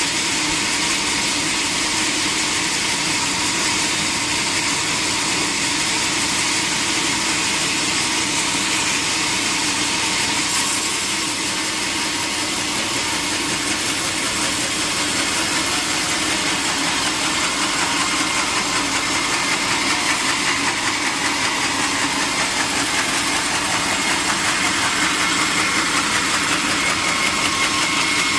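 Sawmill machinery running steadily with a loud, even noise and no distinct strokes or breaks.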